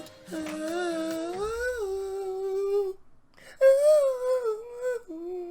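A man singing along in long, held, wavering notes, close to humming, in two phrases with a brief break about three seconds in. The second phrase opens on its loudest note.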